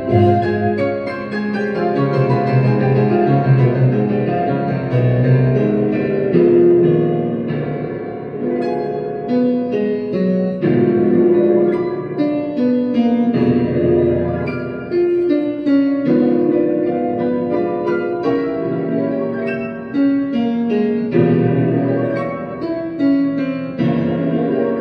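Piano music playing.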